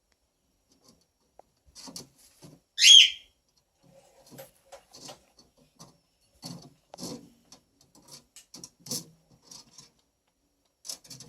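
Cockatoo rubbing her beak on a grate: irregular short rasping scrapes, the bird sharpening her beak. About three seconds in she gives one short, loud whistled call.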